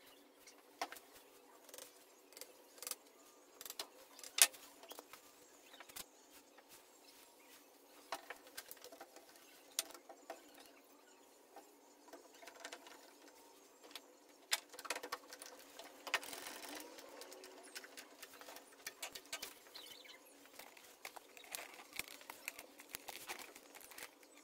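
Faint, scattered clicks and light knocks of plastic one-handed bar clamps being fitted and squeezed tight on the edge of a solid angelim amargoso tabletop, with a short rustle about two-thirds of the way through.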